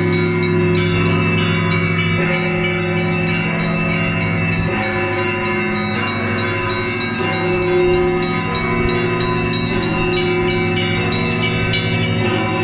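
Russian Orthodox church bells rung together in a peal: rapid strokes on the small high bells over the long-ringing tones of the larger bells, with the deep bells changing note a couple of times.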